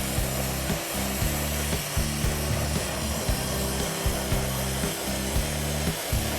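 Steady hiss of a jeweler's soldering torch flame heating the silver base plate while the solder inside the bezel melts, under background music with a steady beat.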